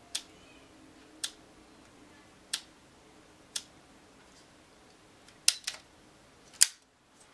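Canon EOS Rebel SL2 DSLR shutter firing. Four single shots come about a second apart, then a quick pair and one last shot near the end, the last two the loudest.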